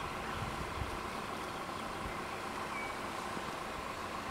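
Level-crossing warning bells ringing steadily, an even tone near 1 kHz.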